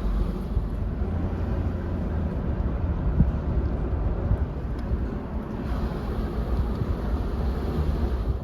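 Steady low rumbling noise with a few faint knocks.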